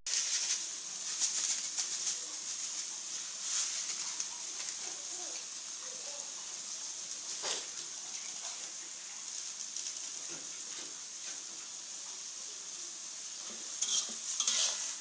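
Water spinach sizzling steadily as it is stir-fried in a metal wok, with a metal spatula scraping and knocking against the pan. The stirring gets louder and brisker near the end.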